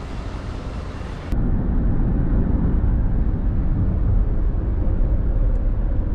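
Outdoor street noise for about a second, then a cut to the inside of a moving Toyota van: a steady, loud, deep road and engine rumble in the cabin.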